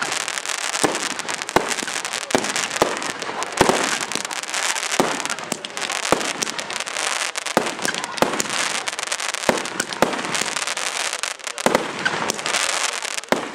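Aerial fireworks display: sharp bangs of shells bursting at irregular intervals, about one or two a second, over a continuous crackle.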